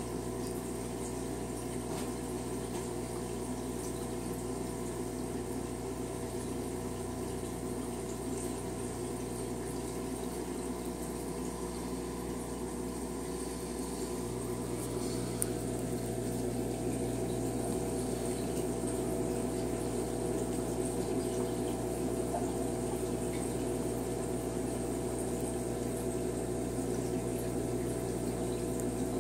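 Aquarium air-driven sponge filters bubbling steadily, with a constant electric hum underneath, growing slightly louder about halfway through.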